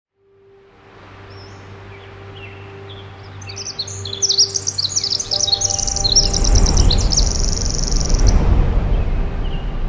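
Songbirds chirping in quick high phrases, ending in a fast even trill about eight seconds in, over a soft held music note. The sound fades in from silence, and a low rushing swell builds in the second half.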